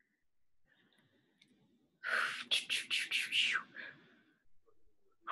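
A person's breathy vocal sounds over a video call: a quick run of five or six bursts lasting about a second and a half, starting about two seconds in.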